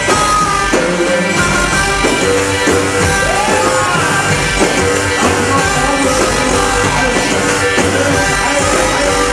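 Loud amplified wedding dance music: an electronic mix with sustained keyboard lines, a continuous low beat and a singing voice gliding over it.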